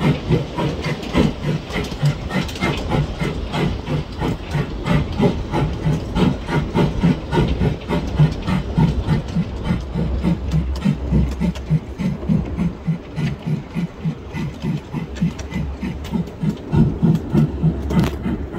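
Ridable miniature live-steam locomotive chuffing in a steady, even rhythm as it runs along the track, over a low rumble of the train rolling on the rails.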